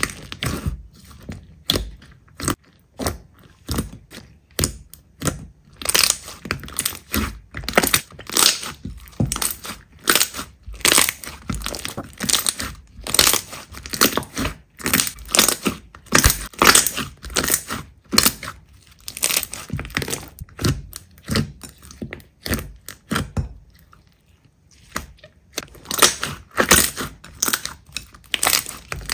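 Slime being squeezed and pressed by hand, giving a run of sharp crackles and pops two or three a second, with a brief pause about three-quarters of the way through.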